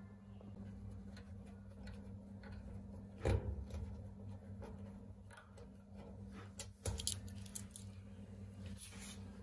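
Light clicks and taps of screws and metal dryer panels being handled as the dryer is taken apart, with two louder knocks about three and seven seconds in, over a steady low hum.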